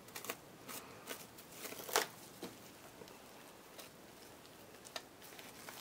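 Plastic wrap crinkling faintly in the hands as it is scrunched up and pressed onto wet watercolour paint, in a few scattered soft crackles.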